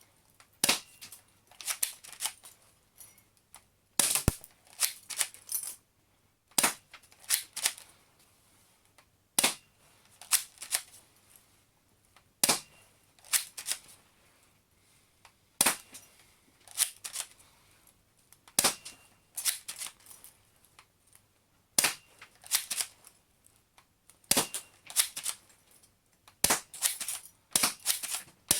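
Spring-powered Tokyo Marui Desert Eagle airsoft pistol being shot over and over, about one shot every three seconds. Before each sharp snap of the spring firing, the slide is pulled back by hand to cock it, so the sounds come in clusters of clicks.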